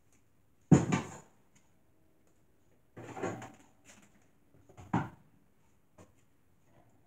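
Food containers being lifted out of a fridge and set down: a few separate clunks and knocks, the loudest about a second in, others around three and five seconds.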